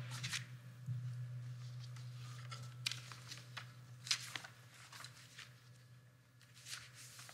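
Faint rustling and a few small clicks of papers being handled at a lectern, over a steady low hum.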